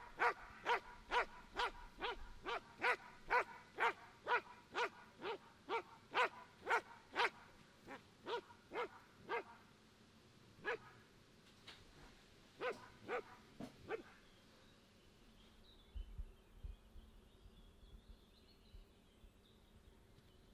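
A Belgian Malinois barking repeatedly at an even pace of about two barks a second, then slowing to a few scattered barks and stopping about 14 seconds in.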